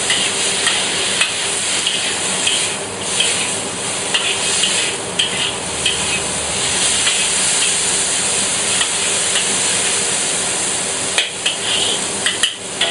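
Sliced onion and mushrooms sizzling in hot oil in a wok, with a metal wok ladle scraping and tossing them against the pan in repeated strokes; the scrapes come faster and sharper near the end.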